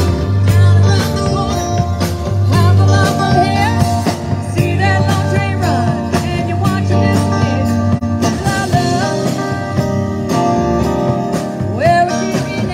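Live rock band playing an upbeat groove: a drum kit keeping a steady beat under electric guitars and bass, with a voice singing over it.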